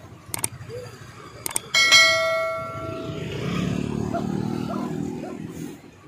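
A metal cooking vessel at a street food stall is struck and rings once with a clear, bell-like tone that fades over about a second and a half. A couple of short clicks come just before it.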